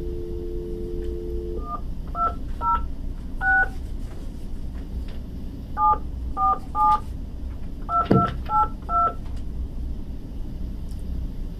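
Telephone dial tone that stops about a second and a half in, followed by touch-tone dialing: about eleven short two-note key beeps in uneven groups as a phone number is keyed in, with no 9 dialed first for an outside line.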